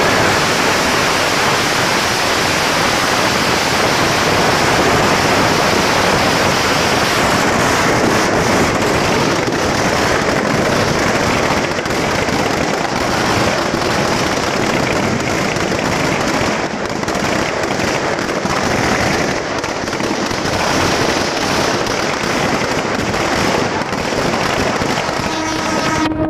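Firecrackers packed inside a burning Ravan effigy going off in a dense, continuous crackle and popping, with no single bang standing out.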